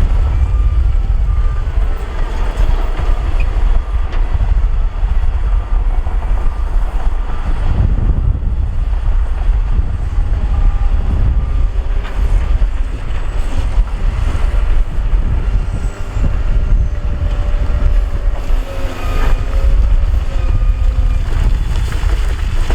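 Heavy earthmoving machinery engines running with a loud, steady low rumble, buffeted by wind on the microphone. Short high beeps from a back-up alarm repeat at times.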